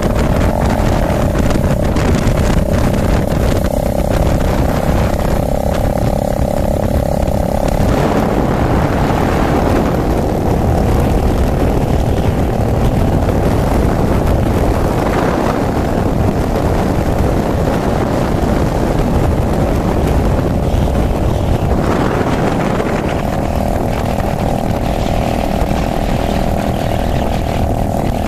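Cruiser motorcycle engine running steadily while riding along at road speed, with heavy wind noise rushing over the microphone.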